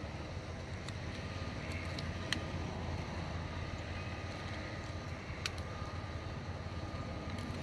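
A few light, sharp clicks of a hand wire crimper being worked on gauge wiring, over a steady low background rumble.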